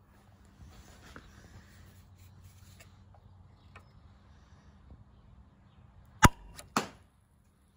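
40MAX 40mm pneumatic launcher firing a foam grenade: a single loud, sharp pop about six seconds in, followed about half a second later by a second, smaller sharp knock, over a faint low hum.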